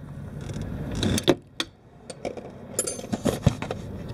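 Scattered sharp metallic clicks and knocks of tools and fork parts being handled under a scooter, mixed with rustling from the camera being moved. The clicks come in two clusters, the loudest knock near the end.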